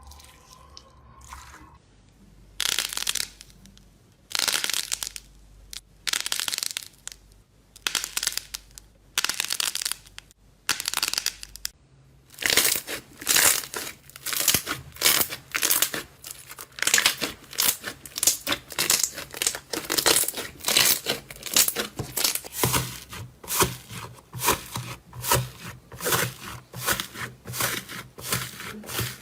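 Slime being squeezed and pressed by hand, crackling and crinkling with each press. The presses come slowly at first, then quicker, about two a second, from a little before halfway.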